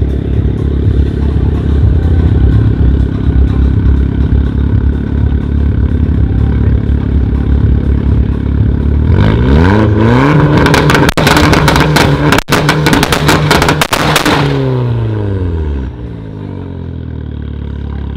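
Straight-piped, decatted Capristo exhaust on a 330 hp turbocharged Abarth 595 1.4 four-cylinder, idling loud and lumpy, then revved up about nine seconds in and held high for around five seconds with crackling and three brief cuts, before the revs drop back to a quieter idle.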